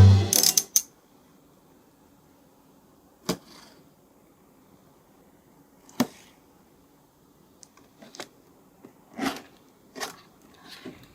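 Background music stops in the first second; then scattered single clicks, taps and light rustles of a plastic action figure and its packaging being handled, with quiet gaps between them and a closer run of them near the end.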